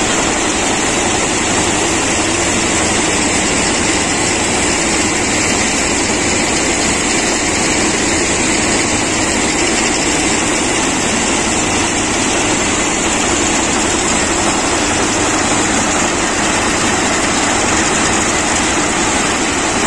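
Plasser RM80-92U ballast cleaning machine working on the track: its engine and ballast-cleaning machinery make a loud, steady mechanical din without a break.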